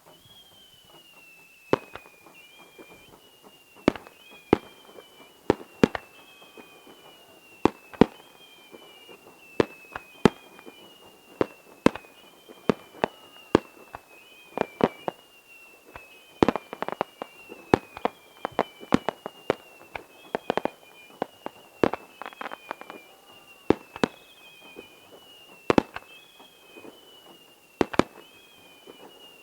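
Fireworks bursting: many sharp bangs at an uneven pace, some close together in quick runs. A faint falling whistle repeats steadily about every second and a half behind them.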